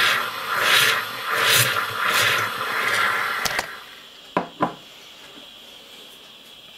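Coffee machine steam wand frothing milk in a jug: a loud hiss and gurgle that swells and fades about every 0.7 s, stopping about three and a half seconds in. Two quick clicks follow about a second later.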